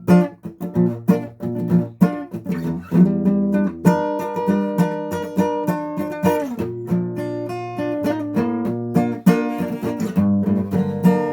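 A guitar strummed in a steady rhythm of repeated chord strokes, changing chords a few times.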